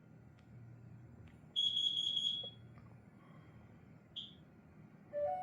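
Combination smoke and carbon monoxide alarm's piezo horn giving one loud, steady, high-pitched beep of just under a second, then a short high chirp about two and a half seconds later. A brief lower two-note blip comes near the end, with a few faint clicks between.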